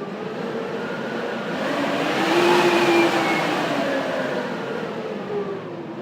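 Blizzard wind swelling into a gust that peaks about halfway through and then eases off, with whistling tones that rise and fall in pitch along with it.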